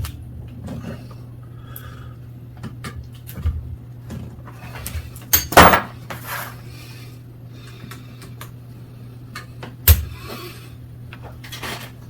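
Metal hand-tool clatter: an Allen key working a very tight bolt on a bicycle, with scattered clicks and clanks, the loudest a cluster about halfway through. A steady low hum runs underneath.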